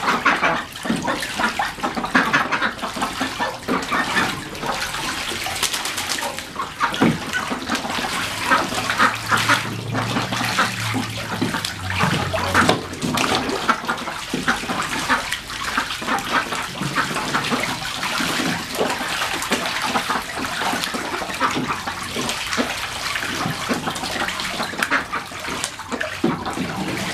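Young Khaki Campbell ducks splashing in a shallow plastic kiddie pool, the water sloshing steadily with frequent quick splashes as they dip their heads and flap.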